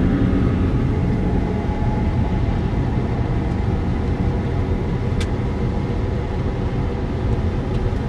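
Car driving on a wet road, heard from inside the cabin: a steady low rumble of engine and tyres, with one small click about five seconds in.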